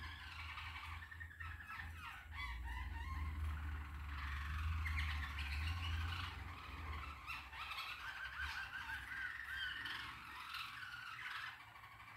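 Small caged birds chirping and twittering, with a quick run of repeated notes about two-thirds of the way through. A steady low hum runs underneath, fading in the second half.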